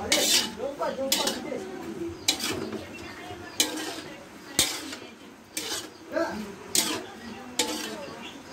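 Metal spatula scraping and clanking against the inside of a large aluminium wok while stir-frying chicken and carrot strips, about one stroke a second.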